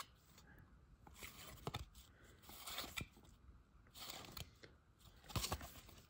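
Faint, short rustles and soft snaps of paper trading cards being slid one by one off a stack held in the hands, coming irregularly about once a second.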